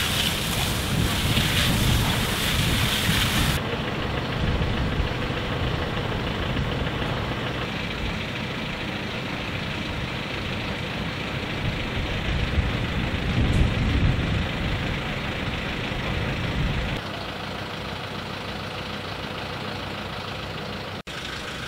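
A fire hose jet hissing for the first few seconds, then stopping suddenly. After it, the steady low rumble of a fire engine idling, its pump running, which becomes quieter about seventeen seconds in.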